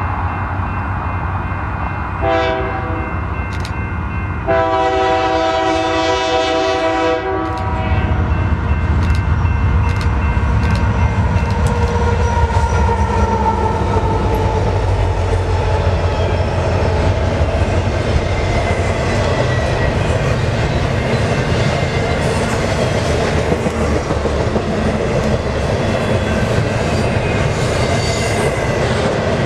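Diesel locomotive air horn sounding a short blast, then a longer one about two seconds later, as a Union Pacific intermodal freight train approaches a grade crossing. The train then passes close by: a steady heavy rumble of the locomotives and the double-stack container cars rolling over the rails with clickety-clack.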